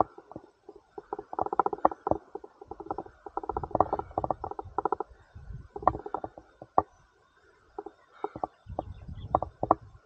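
Wind buffeting the camera microphone in irregular gusts: a muffled, crackling rumble with a short lull about two-thirds of the way through.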